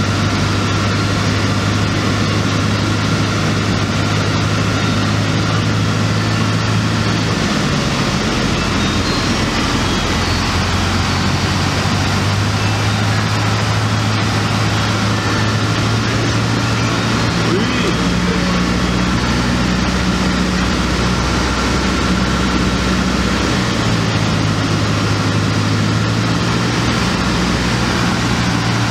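A Cessna 152's four-cylinder Lycoming engine and propeller drone steadily, heard from inside the cockpit. The engine note shifts in pitch a few times as power is adjusted on final approach.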